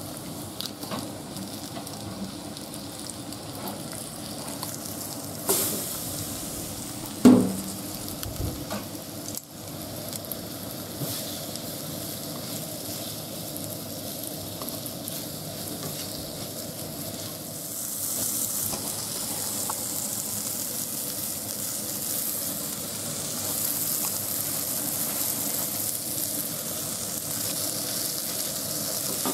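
Small horse mackerel coated in karaage flour sizzling as they shallow-fry in oil in a frying pan, stirred with chopsticks. There are a couple of sharp knocks about a quarter of the way in, and the sizzle grows louder about two-thirds of the way through.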